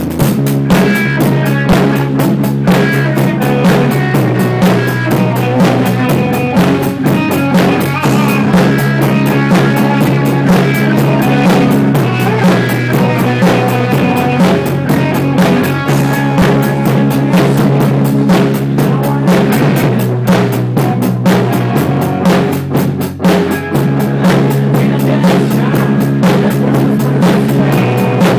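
A rock band playing loud and live: electric guitars over a full drum kit, with the low chords changing every two seconds or so.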